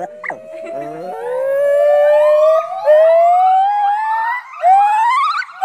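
Male white-cheeked gibbon singing: pure whistled notes that climb slowly and steadily in pitch for several seconds, breaking into shorter, quicker rising notes with a wavering pitch near the end.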